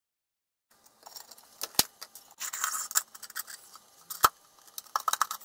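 Handling noise from the wired circuit-board chassis of a stall warning tone generator as it is drawn out of its cylindrical case. After a short silence come a few sharp clicks and clinks, with a scraping rustle about two and a half seconds in and a quick run of clicks near the end.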